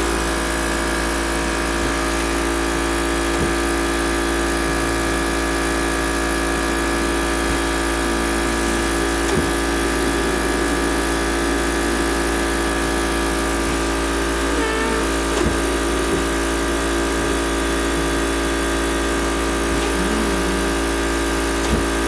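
A cough assist machine's blower running, a steady electric hum made of several fixed tones that holds unchanged throughout.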